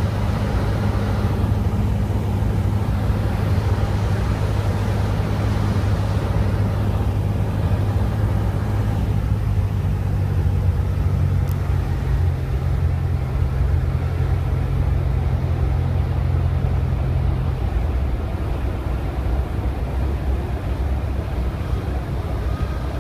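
Cessna 172's four-cylinder piston engine running steadily, its low drone shifting pitch about ten seconds in and again near eighteen seconds as the power setting changes.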